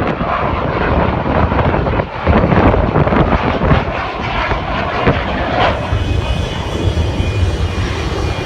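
Aircraft engine noise as a plane flies past, a loud continuous rumble; about six seconds in, a few steady high tones join it.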